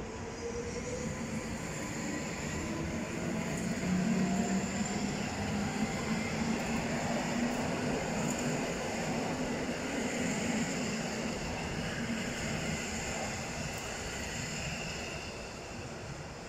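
Electric multiple unit commuter train passing on the near track: wheels running on the rails with the electric traction motors humming. A whine rises in pitch in the first few seconds, the sound is loudest through the middle, and it fades as the train pulls away.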